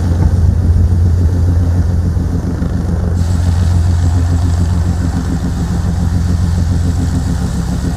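Police helicopter's turbine engines and rotor running steadily: a loud, even low drone that holds one pitch. A little past three seconds in, the higher hiss changes abruptly, as at a cut between shots.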